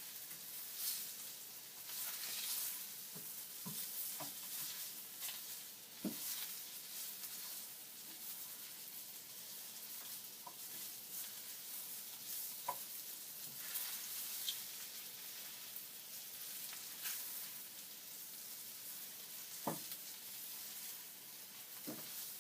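Bacon frying in a pan: a steady high sizzle full of fine crackles, with an occasional sharper pop of spitting fat.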